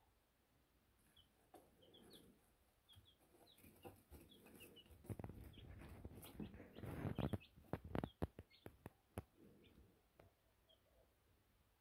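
Baby chicks peeping softly as they settle down to sleep, with short high chirps scattered through. In the middle come several seconds of louder rustling and scratching in the wood shavings as the chicks shuffle and huddle together.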